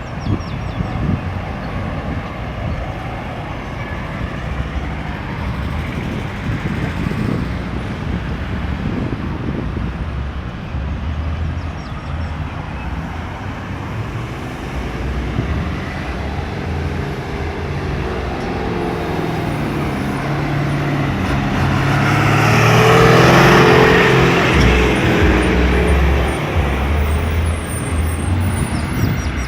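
Steady road traffic at a busy roundabout, with cars and heavier vehicles passing continuously. A large engine passes close about three quarters of the way through and is the loudest moment.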